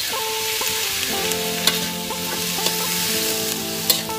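Squid rings and onion sizzling in hot oil in a wok as they are stir-fried. A metal spatula clicks against the pan about four times.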